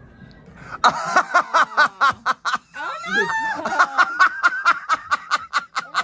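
Hard, rhythmic laughter of short, high-pitched "ha" pulses, about four or five a second, breaking out about a second in and running on with a few rising and falling squeals.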